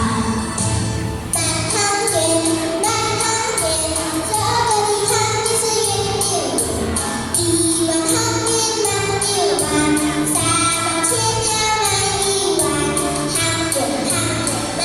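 A female voice singing a melody over a backing track with a steady beat.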